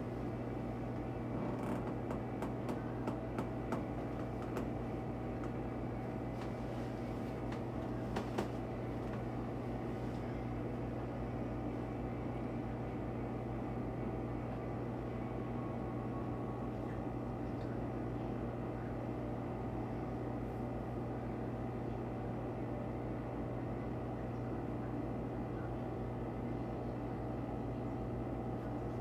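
A steady low mechanical hum, as of a running room appliance, with a few faint clicks in the first several seconds.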